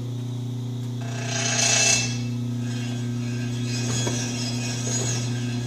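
Old Atlas metal shaper running with its electric motor humming steadily, test-run to check the ram's stroke length before cutting. A higher rushing swell comes about two seconds in.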